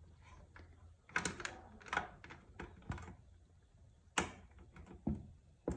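Irregular light clicks and taps of multimeter test probes touching an inverter's screw terminals while its input diodes are checked, with the test leads being handled; the sharpest tap comes a little past four seconds in.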